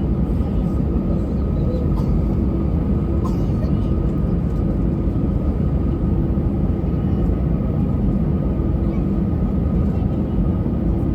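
Airbus A320 cabin noise: a steady, even rumble of the engines and airflow, with a faint steady high whine.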